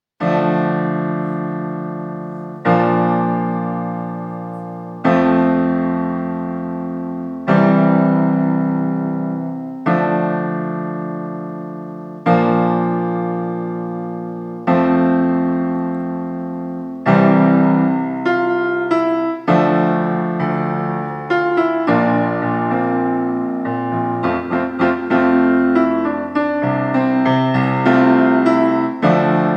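Solo piano playing a song accompaniment. It opens with sustained chords struck about every two and a half seconds, then from about seventeen seconds in moves to a busier pattern of broken chords and shorter notes.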